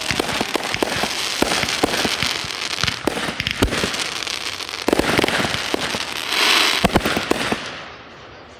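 Fireworks going off: a dense run of sharp bangs and crackling, with a loud hiss about six and a half seconds in. It dies down near the end.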